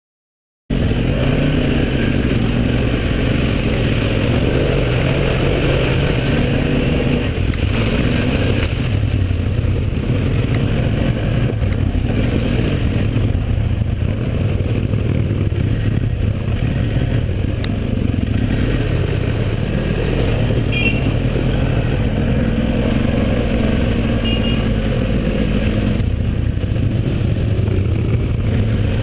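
Quad bike engine running as the ATV rides along a muddy track, heard from on board the machine, its pitch rising and falling a little with the throttle. The sound cuts in suddenly just under a second in.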